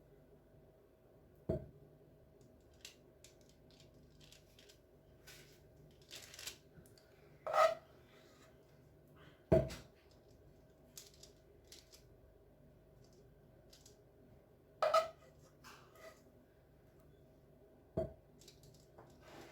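A spoon clinking and tapping against a dish while sticky caramel is portioned out. There are about five louder knocks a few seconds apart, two with a brief ring, and faint clicks and scrapes between them.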